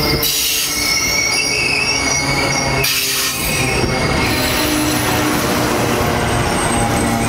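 Amtrak Coast Starlight passenger cars rolling past close by: a steady rumble of steel wheels on rail, with high-pitched wheel squeal through the first half.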